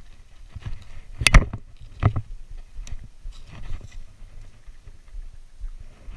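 Footsteps of a person clambering over rocks and a concrete wall, a run of low thuds with faint clicks, and two sharp knocks, one about a second in and one about two seconds in.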